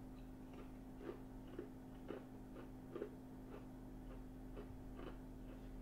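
A person chewing a mouthful of salad close to the microphone: faint mouth clicks about twice a second.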